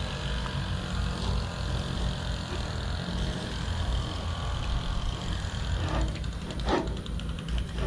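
Steady low rumble of background noise. A few short scrapes or knocks about six and seven seconds in come from a knife cutting along the bone of a beef short rib.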